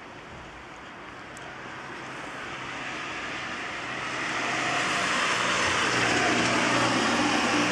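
A car driving along a wet road, its tyre hiss and engine growing steadily louder as it approaches, loudest near the end.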